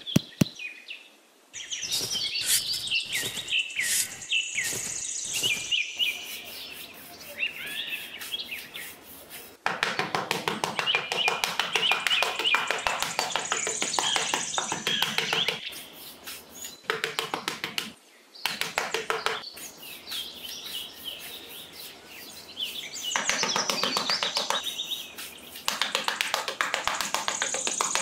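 Small hand trowel scraping and patting sand in long runs of quick, rapid strokes, with birds chirping throughout.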